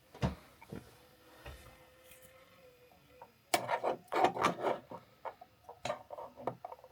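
PLA support material being pried and snapped off a 3D print: a run of plastic clicks and crackles, a few at first, then a dense burst about halfway through and scattered snaps after.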